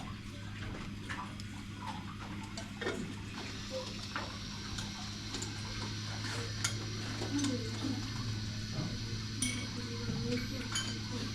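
Cabin ambience: a steady low hum with scattered small clicks and light clinks of tackle and gear, and faint voices in the background.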